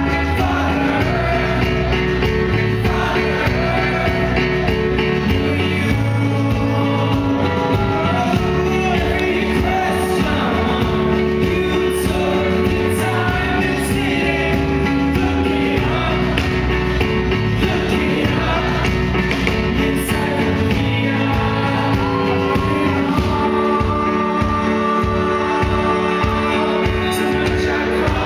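Indie rock band playing live, heard from the audience: electric guitars, drums and sung vocals, with a steady drumbeat.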